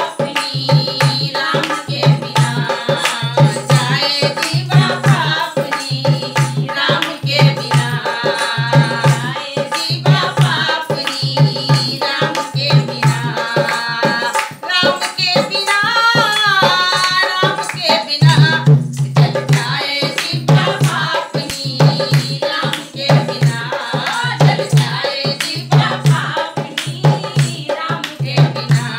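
Women singing a Hindi devotional folk song, a Ram bhajan, to a dholak drum played by hand in a steady rhythm, with hand clapping on the beat.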